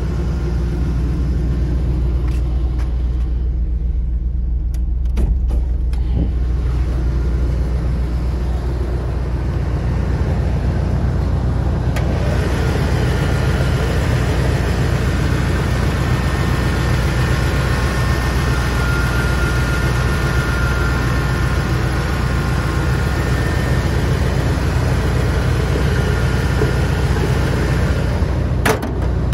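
The 1993 Chevrolet 454 SS pickup's 7.4-litre big-block V8 idling with a steady low rumble. About twelve seconds in, the sound fills out and a faint high whine joins it.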